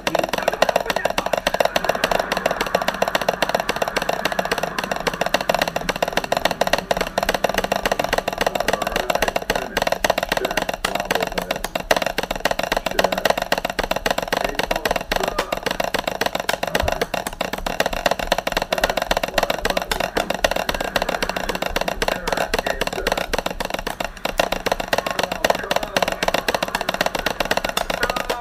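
Fast, continuous tapping with a pair of chopsticks drummed on a wooden coffee table and a glass, played as a rhythmic improvised drum part.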